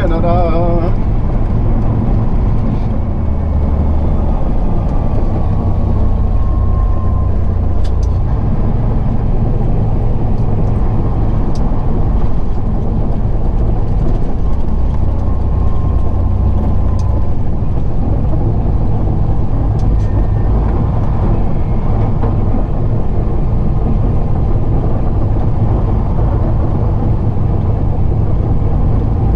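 Semi-truck's diesel engine running with steady road noise, heard inside the cab while driving: a loud, even low drone.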